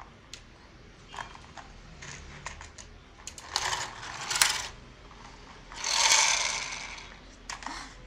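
Pull-string toy scooter being run: the cord is pulled and the toy's plastic gear mechanism runs in two bursts of about a second each, a little before the middle and again about six seconds in, among light clicks of the plastic toy knocking on a wooden table.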